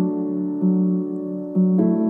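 Slow background music on keyboard: held chords with a new low note about once a second.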